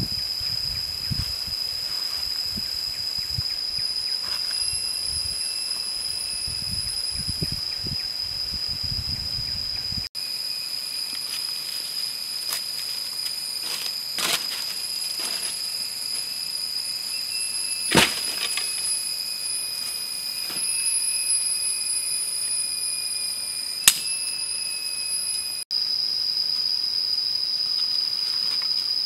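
Steady high-pitched drone of cicadas in dry forest. Footsteps crunch through dry leaf litter for about the first third, and a few sharp cracks of sticks come later, the loudest about two-thirds of the way in.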